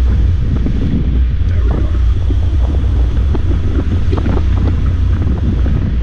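Wind buffeting a GoPro's microphone as it moves along a street: a steady low rumble with a faint hiss above it.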